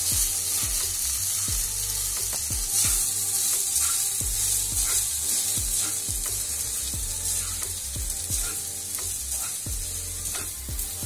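A spatula scraping and knocking around a non-stick kadhai, about twice a second, as boiled vermicelli and vegetables are mixed and stir-fried. A steady light sizzle runs underneath.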